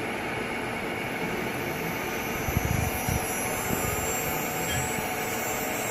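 CNC router spindle motor running up to speed: a steady whirring hiss with a faint high whine. A few low knocks sound around the middle.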